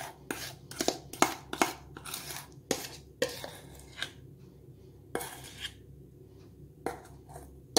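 A metal spoon scraping and tapping against a stainless steel mixing bowl while scooping thick almond cream out of it: a string of irregular short scrapes and clinks, with a couple of brief pauses.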